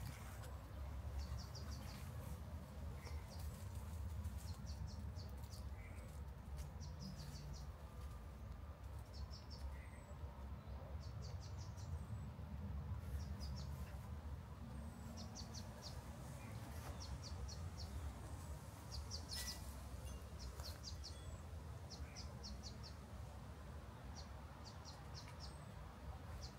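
Small birds chirping: short, quick runs of high chirps every second or two, with a few thin single calls, over a steady low rumble.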